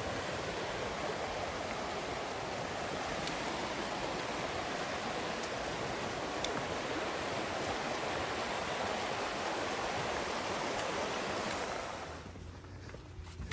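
Steady rush of flowing water from a creek or waterfall. It drops away abruptly about twelve seconds in.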